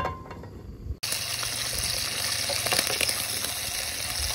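Bacon sizzling and spitting in a frying pan on a portable gas camp stove: a steady, dense hiss that starts suddenly about a second in, with a few light clicks of tongs turning the rashers. A single sharp knock comes right at the start.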